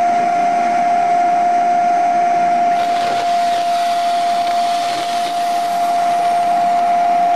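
Handheld electric sander with a vacuum dust-extraction hose, running steadily with a high, constant whine and a hiss of air. From about three seconds in, a brighter rasping hiss joins as the pad works against the wooden railing.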